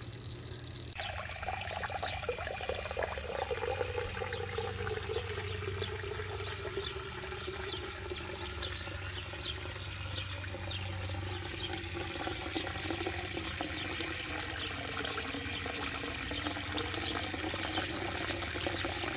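Water pouring from a plastic pond waterfall spillway and splashing into the pond, fed by a newly started pump that is still working trapped air out of its line.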